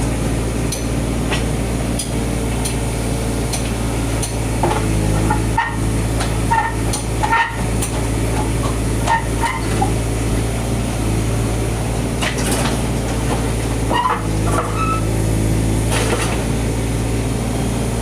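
A steady low engine drone from a running machine, with scattered light knocks and metal clinks of hand work on a building site.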